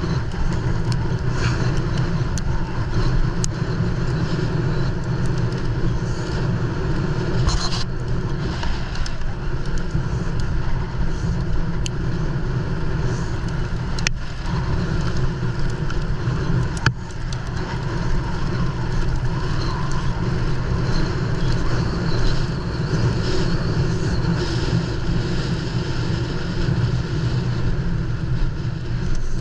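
Steady rush of wind and tyre noise from a mountain bike descending at speed, heard on a GoPro action camera, with a few sharp knocks as the bike takes bumps.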